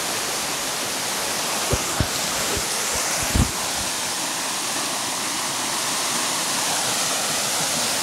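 Waterfall pouring steadily into a pool: an even, unbroken rush of water. A few dull low thumps come through it about two seconds in and again, louder, about three and a half seconds in.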